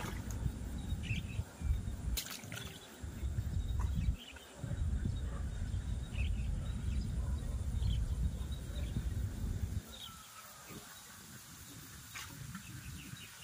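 Scattered short bird chirps over a low, uneven rumble that drops away about ten seconds in.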